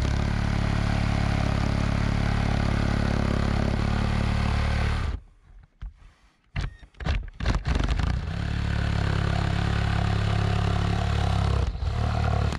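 A handheld power tool's motor runs steadily at one speed for about five seconds and stops. Several short knocks and clatters follow, then the tool runs again for about four seconds, stopping just at the end.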